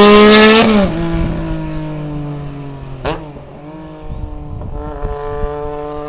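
Triumph 955i motorcycle's three-cylinder engine through a baffled Wolf aftermarket underseat exhaust, running hard at speed. The note drops and fades about a second in, there is a sharp crack about three seconds in, and then the engine note climbs in pitch again more faintly before stopping near the end.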